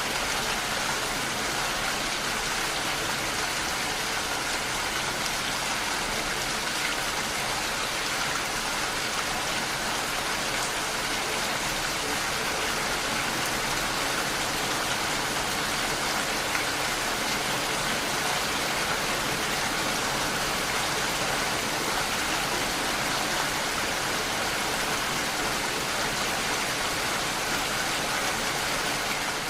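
Steady rain falling, a constant even hiss of drops with no breaks.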